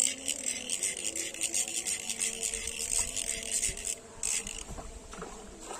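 Insects chirring in a dense, rapidly pulsing high-pitched drone that fades away about four seconds in.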